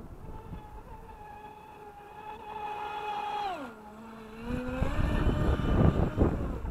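Atomik Barbwire 17 RC speedboat's electric motor whining at a steady high pitch at speed, then falling steeply in pitch about three and a half seconds in as the throttle comes off. Over the last couple of seconds a louder rough rushing noise takes over.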